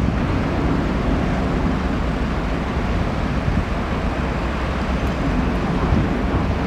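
Steady rumble of jet airliner engines across the airport, mixed with wind on the microphone.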